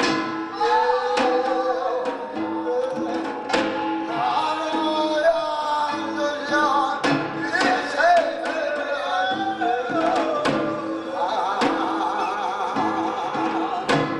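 Binari, a Korean ritual blessing song: singing with a strongly wavering pitch over a repeating percussion pattern, with sharp strikes every second or so.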